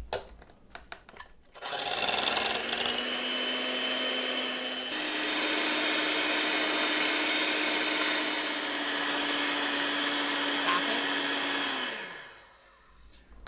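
Electric hand mixer beating heavy cream in a glass bowl to soft peaks. The motor starts a couple of seconds in, steps up to a higher speed about five seconds in, and winds down with a falling pitch as it is switched off near the end.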